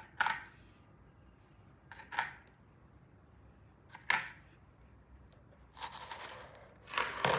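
Coins set down one at a time on the corrugated-cardboard tongue of a homemade cardboard coin bank, a short clink about every two seconds, three times. Near the end the lever on top is pulled and the coins slide off the tongue into the box with a rustling scrape and a quick run of clinks.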